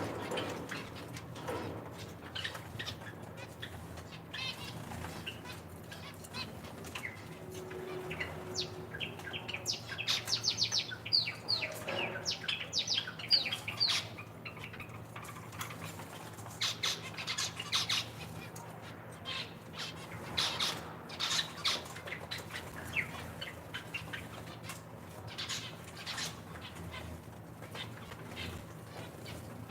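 A flock of captive zebra finches and Java sparrows chirping and calling in many short, high notes, busiest in bursts about ten seconds in and again around eighteen to twenty-two seconds. A steady low hum runs underneath.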